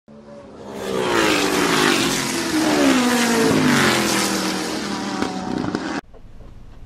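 Car engine sound effect for a logo intro: an engine note swells in over the first second, then drops in pitch as if speeding past. It cuts off abruptly about six seconds in, leaving a low steady car-cabin hum.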